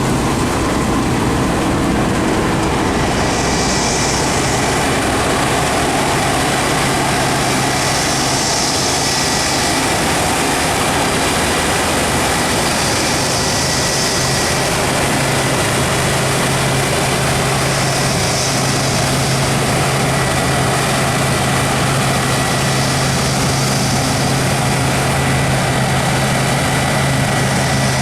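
Combine harvester running steadily under harvest load, a continuous heavy diesel drone with a hiss that swells about every four to five seconds.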